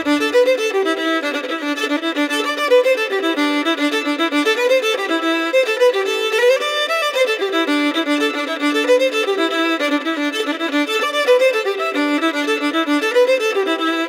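Solo violin bowed through a quick, continuous melody of many short notes, recorded close on a Lauten Audio LA-220 FET condenser microphone.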